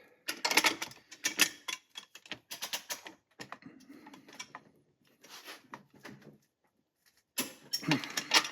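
Ratcheting box-end wrench clicking in several quick runs of clicks as it is swung back and forth on the bolt, the ratchet pawl ticking over the teeth.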